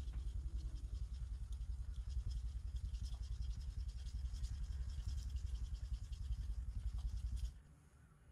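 Small deba kitchen knife being sharpened on a wet whetstone: rapid, even back-and-forth strokes, the blade scraping over the stone with a dull knock at each pass. The strokes stop abruptly shortly before the end.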